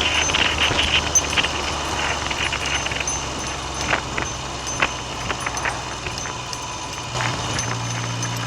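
Classic Triumph Trident three-cylinder motorcycle engine running on the road, with wind noise on the microphone and scattered sharp knocks. About seven seconds in the engine note steps up as the revs rise.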